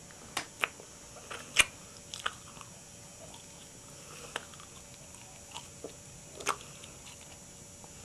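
Aluminium foil crinkling and clicking as it is pressed and shaped over the teeth by hand, in scattered short irregular crackles, two sharper than the rest.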